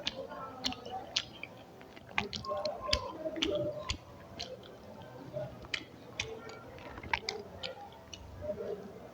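Close-miked eating: a person chewing a mouthful of rice and curry, with irregular wet mouth clicks and smacks.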